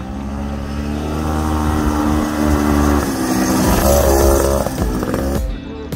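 Honda Odyssey FL250's two-stroke single-cylinder engine running and revving as the buggy drives, its pitch climbing and loudest about four seconds in. Near the end it cuts off abruptly and music with a beat takes over.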